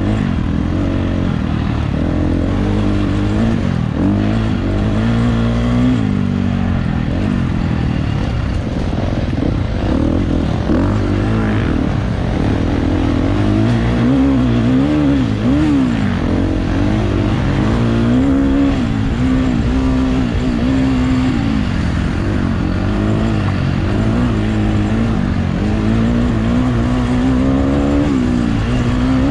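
Dirt bike engine running hard, its revs rising and falling constantly under throttle.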